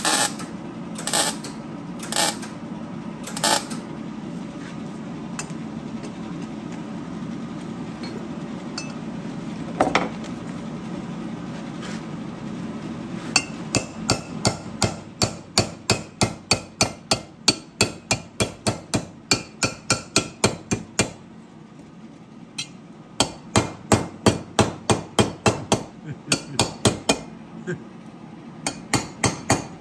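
Hand hammer striking a welded sheet-metal chainsaw muffler on a workbench, in fast runs of blows about three a second that begin about halfway through, break off briefly, then resume. Before the hammering, a steady low hum with a few sharp knocks.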